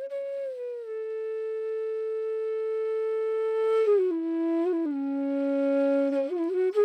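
Background music: a single flute melody of long held notes, stepping down in pitch about four seconds in and climbing back up near the end.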